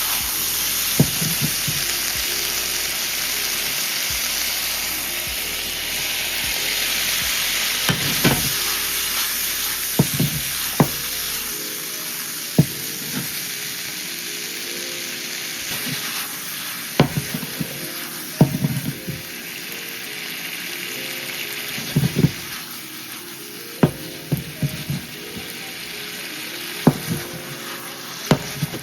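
Food sizzling steadily in a hot frying pan, with sharp knocks every second or few.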